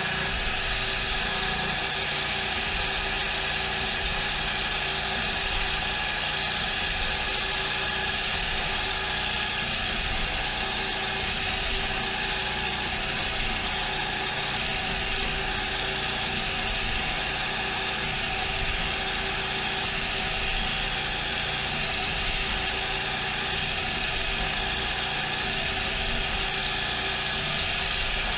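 Geared-head CNC mill spindle running steadily while drilling a hole with coolant: an even gear whine over a rushing hiss. The drill comes back out of the hole without squeaking, and the gearbox does not bog under the load.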